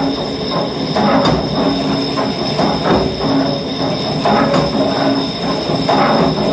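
Lathe turning tool cutting the surface of a cable excavator's spinning hoist drum: a continuous metallic scraping squeal with a steady high whine, swelling and easing about once a second. The drum is being turned true to remove its unevenness.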